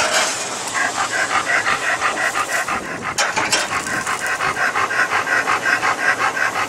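A dog panting quickly and evenly, about five breaths a second.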